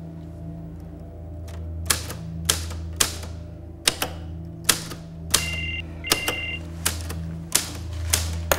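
Manual typewriter keys struck one at a time, slowly and unevenly, about a dozen strikes starting about two seconds in. A low steady drone runs underneath, and a short high tone sounds twice midway.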